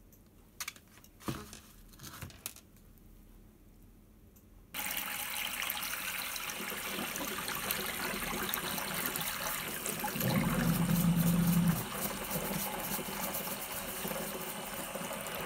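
A few light clicks as the rusty rake head is handled in the electrolysis bath. Then, about five seconds in, a tap is turned on and water runs steadily into a small utility sink while the rake head is scrubbed under it. The water grows louder for a couple of seconds, with a low hum, about ten seconds in.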